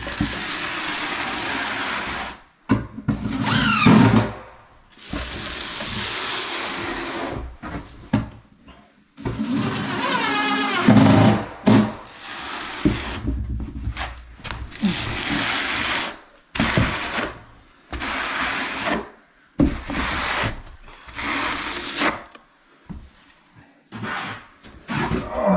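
Cordless drill running in repeated bursts of a second or two with short pauses between, its motor whine twice rising in pitch as it spins up.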